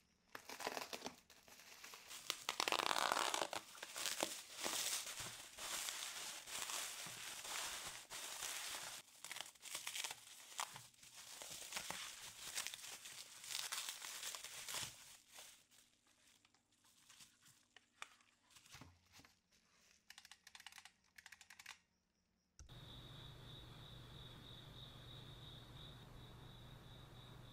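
Bubble wrap crinkling and packing tape tearing as a bubble-wrapped keyboard is unwrapped, in a dense, irregular run of rustles and crackles. About 22 seconds in it stops abruptly and gives way to a steady low hum with a thin high whine.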